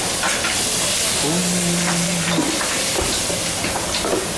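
Busy buffet-restaurant background noise: a steady hiss with scattered clinks of dishes and utensils. About a second in, a low tone is held for about a second.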